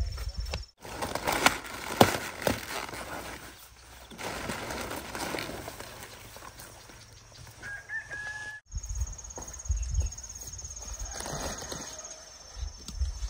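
Chickens clucking, with a short crow-like call just before the second edit cut, over scattered knocks and rustling. After that cut a steady high-pitched whine runs, like insects.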